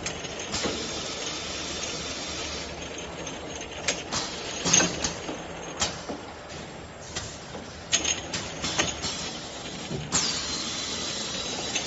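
Linear bottle washing machine running: a steady spray-like hiss with irregular clanks and knocks of bottles and mechanism. About ten seconds in a sharp hiss starts, dips in pitch and settles into a steady high whistle.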